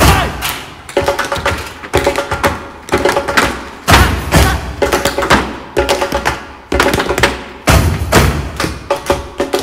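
Stomp-style percussion routine: fast rhythmic stamping and strikes on hard surfaces. Heavy deep thuds come in stretches, briefly at the start, again around four seconds in and near the end, with lighter quick strikes in between.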